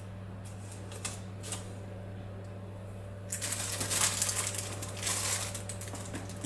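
Raspberries being handled and dropped into a cake tin: a few light taps, then about three seconds of dense clicking and rustling from about halfway in. A steady low hum runs underneath.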